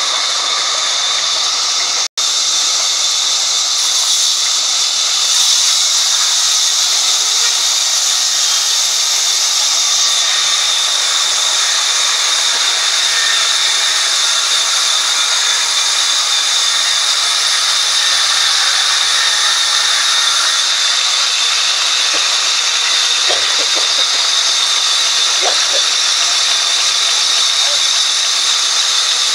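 Sawmill band saw running its blade through a log: a steady, loud hiss with a high whine held on one pitch. The sound cuts out for an instant about two seconds in.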